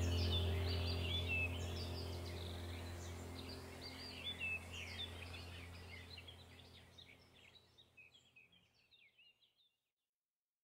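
Small birds chirping rapidly over a steady low hum, the whole sound fading gradually away to nothing near the end.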